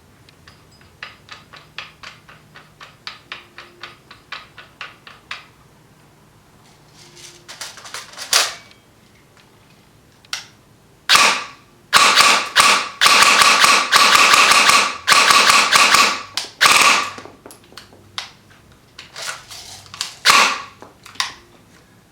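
G&G GR15 Raider electric airsoft rifle (AEG) fitted with a 6-inch muzzle amplifier, firing single shots and fast full-auto strings. Before the shooting, a run of light, evenly spaced clicks.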